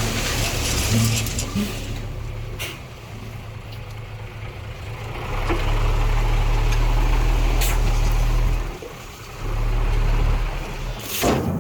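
Heavy diesel engine of earthmoving machinery running, its low hum rising and falling in strength, with a brief dip about nine seconds in. A short burst of hiss comes near the end.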